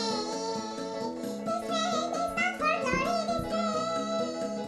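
Children's song about a train, sung by a high-pitched, chipmunk-style voice over an instrumental backing.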